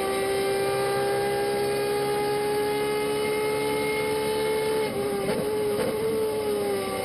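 Onboard engine of a Turismo Carretera Ford race car at full throttle, a steady high engine note climbing slowly as the car accelerates down the straight. About five seconds in the note dips briefly, with a couple of clicks, then it eases down near the end as the car comes off the throttle.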